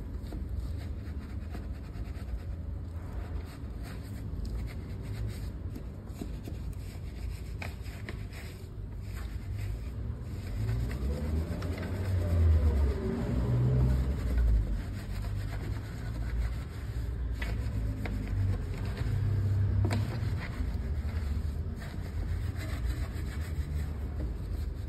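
Wet wheel brush scrubbing through a foam-covered alloy wheel's spokes and barrel, over a steady low rumble of a car engine that rises and falls in pitch around the middle.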